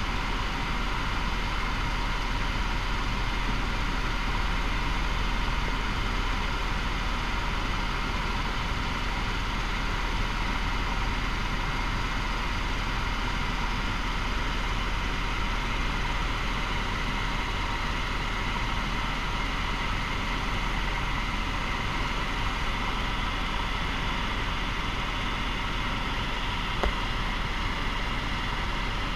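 Helicopter in cruise flight heard from inside the cabin: a steady, unbroken drone of engine and rotor with a constant high whine over it.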